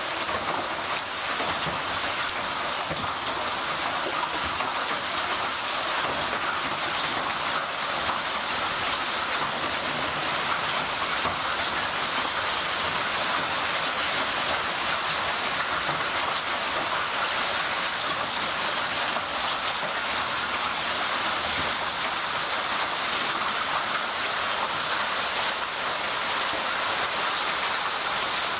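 Heavy hail falling on a lawn and concrete grass pavers: a steady, dense patter of countless small impacts with no letup.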